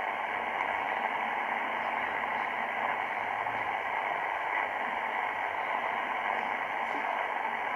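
Shortwave static from an XHDATA D-808 receiver's speaker, tuned to the 40-metre amateur band in LSB mode with no station transmitting. It is a steady hiss with no high treble.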